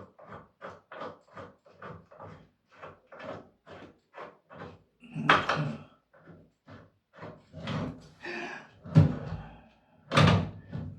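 Clunks and knocks of the stairlift seat being worked onto its mounting pin, the loudest about five, nine and ten seconds in, over a quick, even ticking of about three a second.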